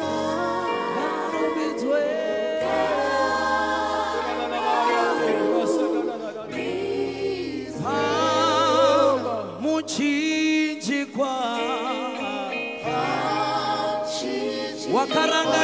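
Live gospel worship music: a lead singer and backing vocalists sing over held keyboard and bass chords that change every couple of seconds, with a wavering vibrato run from the voices about eight seconds in.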